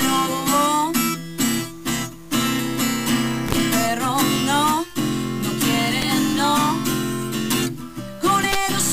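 Music: a strummed acoustic guitar with a sung melody that slides and wavers over it, broken by a few short pauses.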